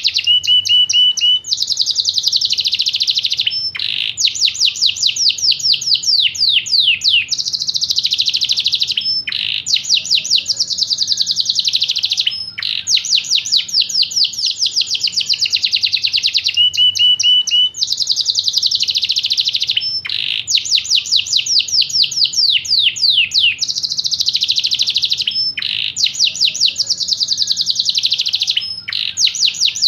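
Yorkshire canary singing a long, continuous song of rapid trills and rolls, with short breaks every few seconds. A short run of clear, even notes comes about a second in and again about halfway through.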